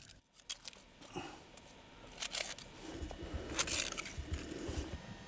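Crunching and scraping of icy snow as small fish are handled on it, with two sharper crunches about two and three and a half seconds in.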